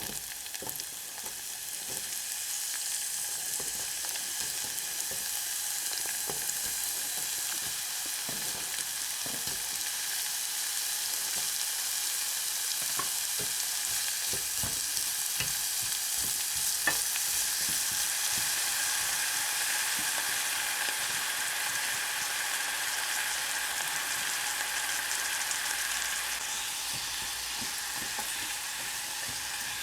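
Food sizzling steadily in a hot frying pan, with scattered small pops and clicks.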